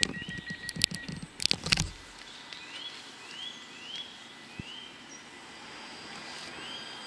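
Stadler FLIRT electric train standing at a station platform as it gets ready to leave. A few sharp knocks in the first two seconds, then a quieter stretch with short rising chirps repeating about twice a second, and a steady high electrical whine from the train starting in the second half.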